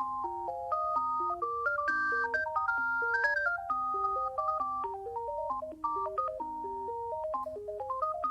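Alcatel One Touch 320 mobile phone playing one of its ringtones: a quick melody of short electronic notes, several sounding at once over a repeating lower line.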